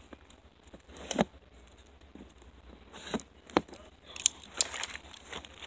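Arrows being pulled out of a bag archery target: a few short, scattered clicks and scrapes of the arrow shafts, the sharpest about three and a half seconds in.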